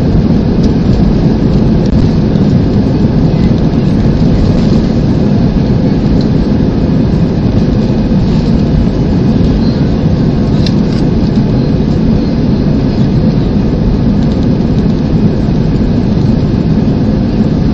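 Jet airliner's engine and airflow noise heard inside the passenger cabin as a steady, loud, deep rumble.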